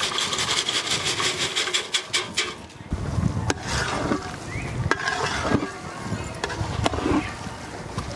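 Kurkure corn puffs poured off an aluminium plate, the hard crunchy pieces pattering and rattling onto the noodles in a dense run of ticks for the first two and a half seconds. After that comes a lower rumble with a few single sharp knocks.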